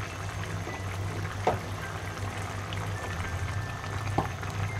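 Shol fish and bottle gourd curry simmering and bubbling in a pan over a steady low hum. A wooden spatula knocks lightly against the pan twice, about a second and a half in and near the end.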